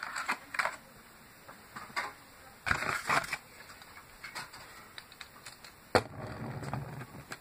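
Handling noise from unpacking a toy monster truck: scattered clicks, rustles and scrapes of its packaging, with a louder rustle about three seconds in and a sharp click about six seconds in.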